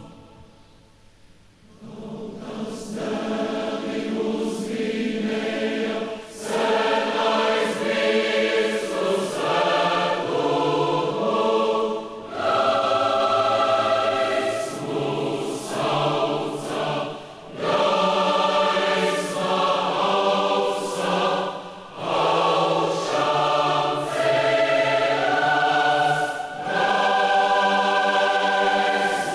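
Massed choir of thousands of voices singing sustained phrases in harmony, with short breaks between phrases. The singing enters about two seconds in, after a brief hush.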